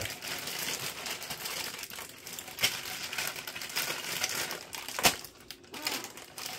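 Clear plastic bag of small toy parts crinkling as it is handled and turned over, with a sharp click about five seconds in.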